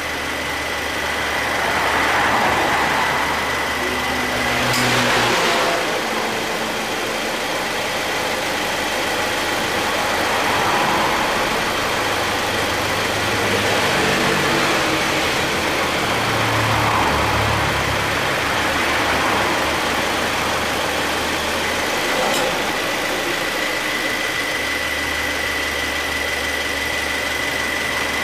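2013 Subaru Forester idling with its air-conditioning compressor running quietly, no longer making its noise now that the heavily worn compressor has been dealt with. A steady high whine and a low hum run throughout, the hum swelling now and then, with a sharp click about five seconds in and another a little past twenty seconds.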